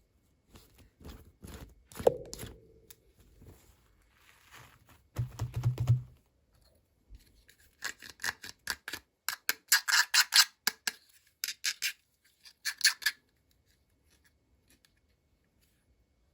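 Toy packaging being handled and opened: scattered clicks and taps, a low thump about five seconds in, then several bursts of crinkling wrapper between about eight and thirteen seconds.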